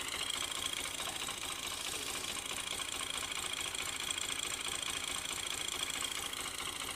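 Fiat 480 tractor's diesel engine running steadily under load, driving the tubewell pumps through a long belt and shaft drive.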